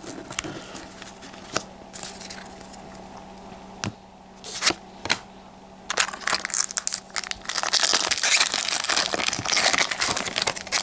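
A few light taps and clicks, then from about six seconds in, dense crinkling of a foil Pokémon XY booster pack wrapper as it is pulled from the booster box and opened, loudest near the end.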